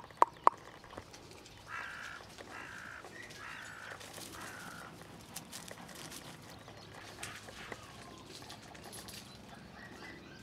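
A crow cawing four times in quick succession, with faint rustling and clicks as a puppy moves over grass and gravel. Two sharp knocks come right at the start.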